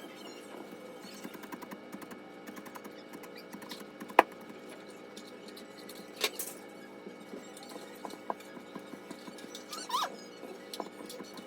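Soft background music, with a sharp click about four seconds in, another about six seconds in, and a short high squeak about ten seconds in.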